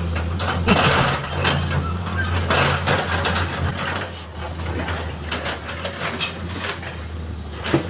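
Road construction machinery running: a steady low engine drone with irregular clanks and scrapes over it.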